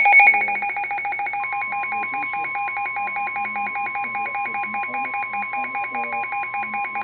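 Weather radio alert alarm: a loud, rapidly pulsing electronic beep. About a second and a half in, the steady NOAA Weather Radio warning alarm tone joins it and holds on. The alarm marks an incoming severe thunderstorm warning.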